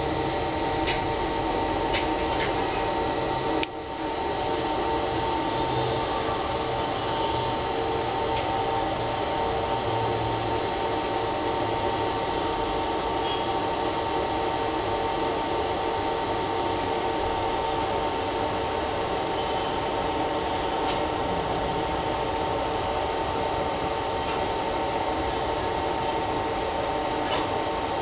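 Steady machine hum with several steady tones, a brief dip about four seconds in, and a few faint clicks.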